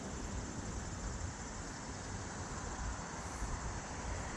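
Steady outdoor background noise: a low, uneven rumble under a constant hiss, with no distinct events.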